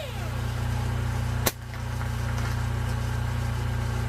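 Jeep Wrangler's 2.5-litre engine idling with a steady low hum, with one sharp click about one and a half seconds in.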